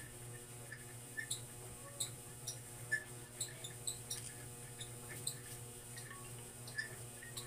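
Quiet room tone: a steady low hum and a faint high whine, with scattered short clicks and squeaks every half second or so.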